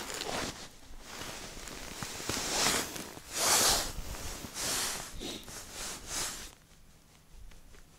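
Rustling and scraping of winter clothing and gloves moving close to the microphone, in a handful of noisy bursts, the loudest about three and a half seconds in, stopping about six and a half seconds in.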